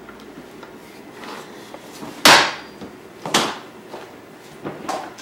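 Two loud knocks about a second apart, then fainter ones near the end: an infant car seat carrier being handled on a table.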